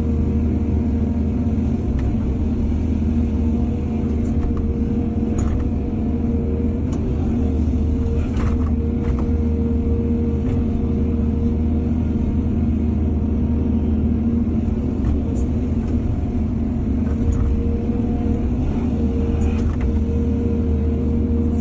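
Excavator's diesel engine running steadily at a constant pitch, with a few short metallic knocks scattered through.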